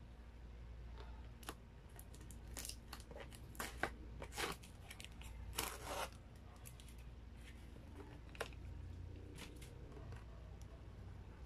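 Plastic condiment sachets being handled on a cardboard pizza box: a string of sharp crinkles and rustles, the loudest about four to six seconds in, then a few scattered clicks.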